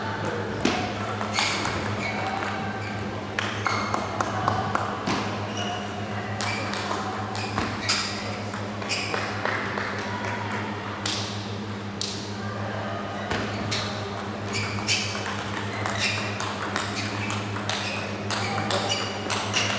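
Table tennis ball being played in rallies: a quick run of sharp clicks as it strikes the bats and bounces on the table, over a steady low hum.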